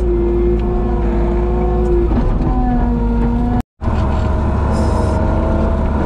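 Skid loader engine running, heard from inside the cab, with a whine that slowly rises and falls in pitch over a steady low rumble. It drops out for an instant about two-thirds of the way through, at an edit, then carries on.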